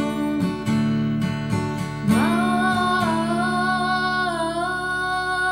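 Acoustic guitar strummed, then about two seconds in a woman's singing voice slides up into one long held note over the guitar, part of a devotional chant song.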